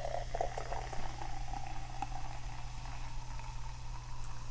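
Sparkling water poured slowly from a can into a glass over ice, fizzing and splashing. A faint pitch rises as the glass fills.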